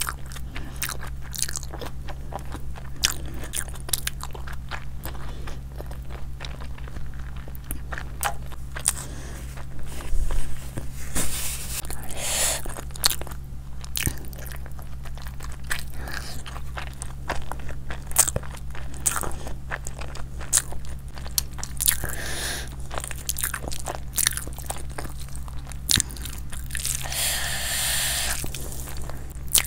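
A person chewing and biting food close to the microphone, with many small wet clicks and crunches. A steady low hum runs underneath.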